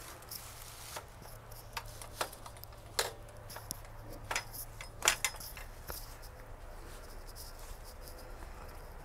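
Footsteps crunching on a thin layer of fresh snow over fallen leaves: light, irregular steps about every two-thirds of a second for the first six seconds, the loudest about five seconds in, then only a faint low hum.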